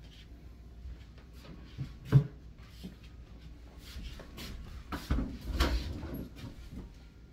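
Household handling noises: one sharp knock about two seconds in, then a cluster of softer bumps and thuds around five to six seconds in as a wooden bedroom door is handled.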